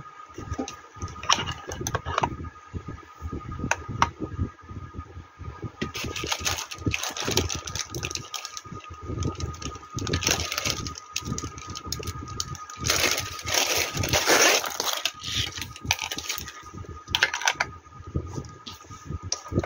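Plastic packaging bag crinkling and rustling as a black shower hose and its plastic wall bracket are handled and unwrapped, with small clicks and knocks of the parts; the crinkling swells in a few louder stretches.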